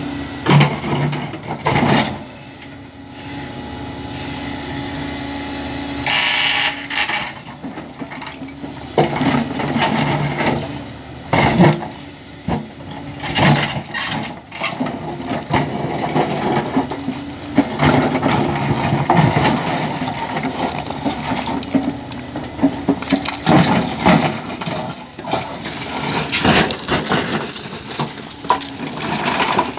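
Hyundai HX480L excavator working rock: the diesel engine runs with a steady low drone while the bucket scrapes and knocks against stone, with repeated cracks and clatter of breaking and tumbling rock.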